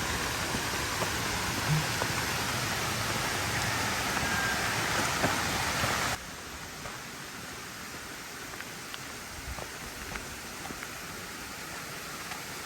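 Small waterfall splashing steadily, running low on water after little rain. About six seconds in the sound drops suddenly to a quieter, steady rush.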